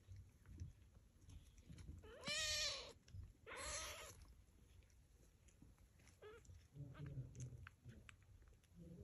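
A cat meows twice in quick succession, about two and three and a half seconds in, each call rising and then falling in pitch. A shorter, fainter mew follows near six seconds.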